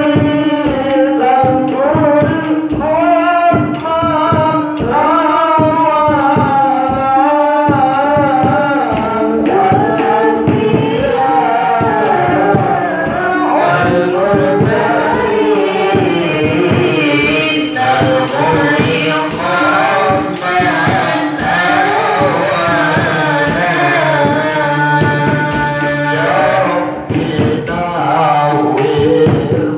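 Sholawat devotional singing: a man's voice sings a long, ornamented melody through a microphone over a steady held tone, with tambourine-like hand percussion beating throughout.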